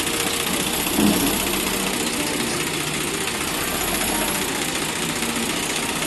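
Escorts backhoe loader's diesel engine running steadily under hydraulic load as the loader arms hold and raise a full front bucket of soil, with a brief louder swell about a second in.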